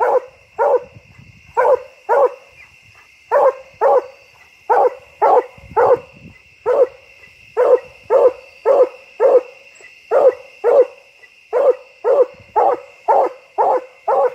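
Black and tan coonhound barking treed at the foot of a locust tree: short, evenly spaced barks a little under two a second, often in pairs, the sign that the dog has its quarry up the tree.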